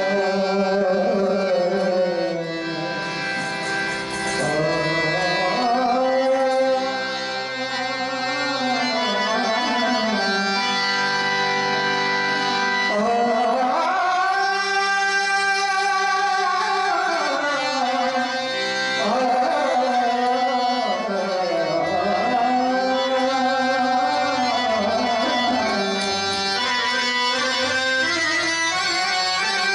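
Marathi bhajan: a male voice singing long held notes that slide up and down, over harmonium accompaniment.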